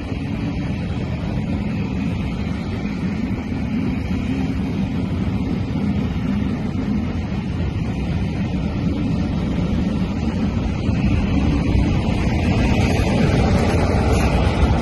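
Rake of passenger coaches running through a station, a steady rumble of wheels on rails. It grows louder near the end as the Class 47 diesel locomotive at the rear of the train draws level.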